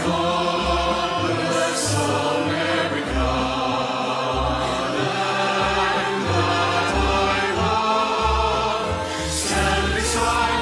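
Mixed choir of men's and women's voices singing together in harmony, with keyboard accompaniment and sustained bass notes.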